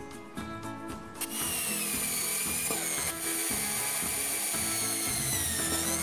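Electric drill running for about four and a half seconds, starting about a second in, its pitch sagging slightly and then rising just before it stops, over background music.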